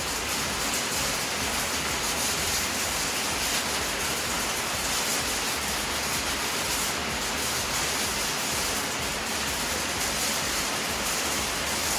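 Steady, even hiss of background noise with no distinct strokes or knocks.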